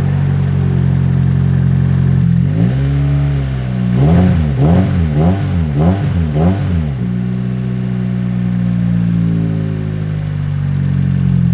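Nissan S14's four-cylinder engine idling, revved once about two seconds in, then blipped four times in quick succession before settling back to a steady idle. The engine has a misfire that a new fuel filter has not yet been shown to cure.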